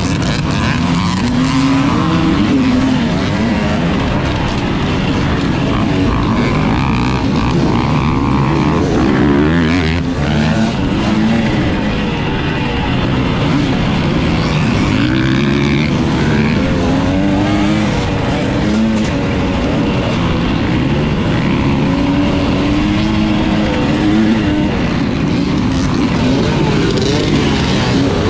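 Dirt bike engine heard from on board while racing off-road, its pitch rising and falling again and again as the rider works the throttle and shifts through the gears.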